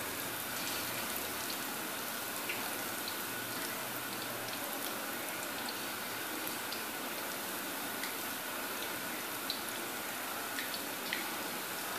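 Besan pakoras deep-frying in hot ghee in a black iron karahi over a high flame: a steady sizzle full of small crackles.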